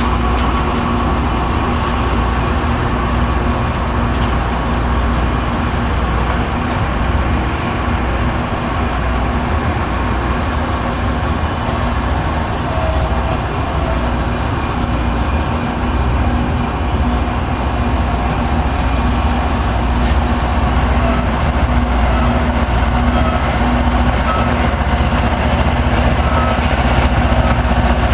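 Loram rail grinder train's diesel engines running in a loud, steady drone as it moves along the track, growing a little louder near the end.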